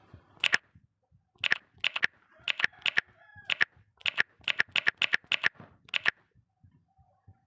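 A rapid, uneven series of sharp clicks or taps, about fifteen in all, with a brief faint pitched sound among them about three seconds in.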